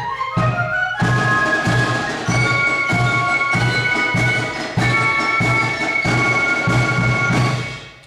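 Spielmannszug fife-and-drum corps playing the closing bars of a piece. A quick rising run of flute notes leads into high sustained flute chords over a steady drum beat, and the music stops about half a second before the end.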